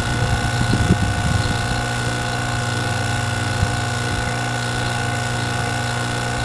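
Refrigerant vacuum pump running steadily with a low hum, pulling a deep vacuum on a new condenser's line set at about 300 microns, near the end of the evacuation. A few light knocks come in the first second and a half.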